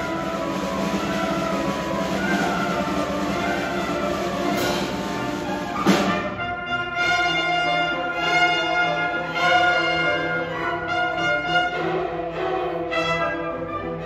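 A youth symphony orchestra playing: strings with brass and percussion in a full, sustained passage, broken by one loud percussion hit about six seconds in, after which the orchestra plays a run of separate, accented chords.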